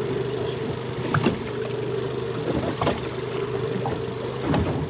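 Boat engine idling with a steady low hum, with a few short sharp clicks about one, three and four and a half seconds in.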